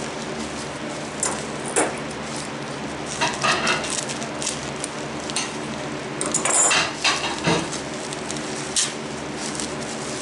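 Hatching eggs and their wrapping being handled: scattered light clinks, taps and rustles, in small clusters, over a steady low hum.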